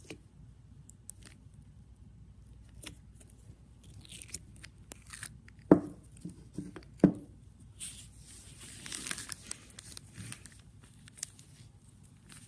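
Fingers pressing and squishing slime: scattered crackles and clicks, two loud pops about six and seven seconds in, and a stretch of crinkly rustling a couple of seconds later.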